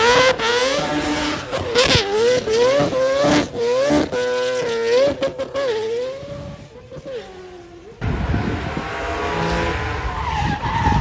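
Drift car's engine revving hard, its pitch bouncing rapidly up and down as the car slides sideways, with tyre squeal. The engine fades about six seconds in. After a sudden change about two seconds later, a second car is heard approaching as a lower, steady rumble.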